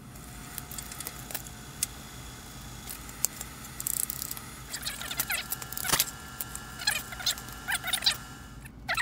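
Plastic Commodore 64 keycaps and keyboard parts being handled and pressed back into place, giving scattered light clicks and clacks that come thicker about halfway through.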